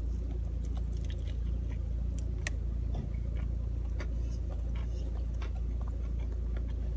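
Close-up chewing and faint mouth clicks of a man eating a Double Down, two fried chicken fillets with bacon and cheese. Behind it is a steady low hum inside a car cabin.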